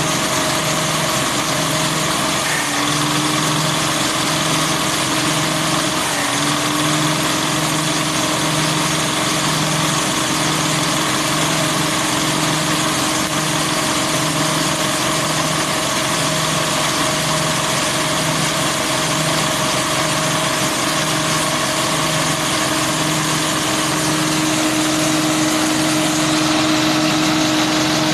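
Single-cylinder diesel engine running steadily, driving a grass chopper with nothing being fed in, its note pulsing slowly and evenly.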